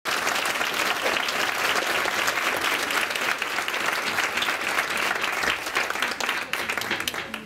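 Small audience applauding, clapping hands steadily and dying away near the end.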